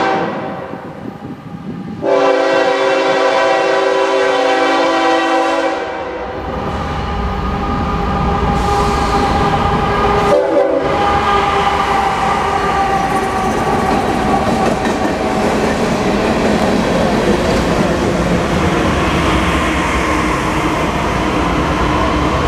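Diesel freight locomotive horn: a short blast at the start and a long steady blast from about 2 to 6 seconds in. Then the steady rumble and wheel noise of the freight train going by.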